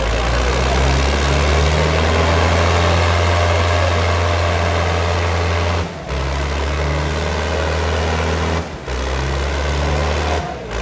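Tractor diesel engines running hard under load in a tochan tractor tug-of-war pull: a loud, steady, deep drone. It breaks off briefly about six and nine seconds in.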